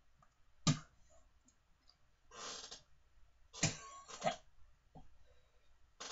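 A person gagging, coughing and exhaling hard in disgust after chewing a foul-tasting jelly bean, in a few separate breathy bursts, with a sharp sudden noise about a second in.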